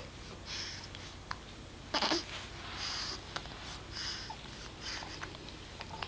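A baby hiccuping: one short, sharp hic about two seconds in, with quick, soft breaths roughly every second in between.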